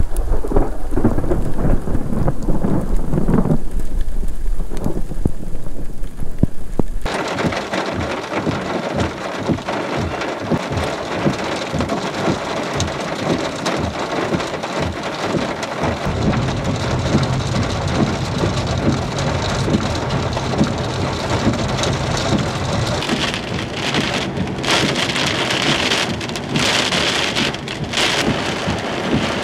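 Heavy thunderstorm rain pouring down, with thunder rumbling low beneath it. About seven seconds in, the sound changes abruptly from a deep rumble to a dense, hissing downpour.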